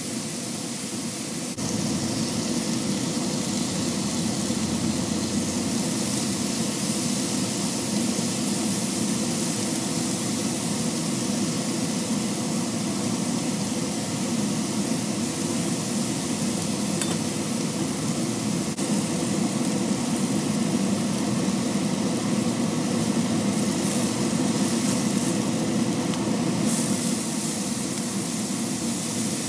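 Sliced onions, bell peppers and beef steaks sizzling steadily in oil on a hot griddle pan, turned now and then with metal tongs. The sizzle gets a little louder about a second and a half in.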